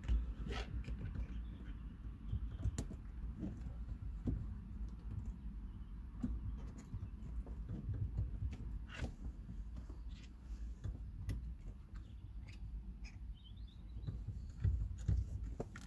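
Irregular light clicks, knocks and rustles of metal sport pedal covers being worked onto a car's clutch and brake pedals, over a low steady rumble.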